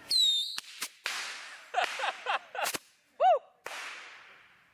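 Bottle rockets going off: a short whistle at the start, then hissing launches and several sharp cracking pops, with one more brief whistle about three seconds in.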